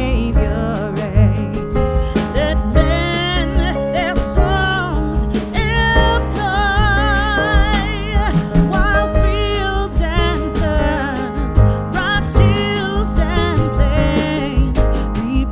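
Background song with a sung vocal line over a steady beat and bass.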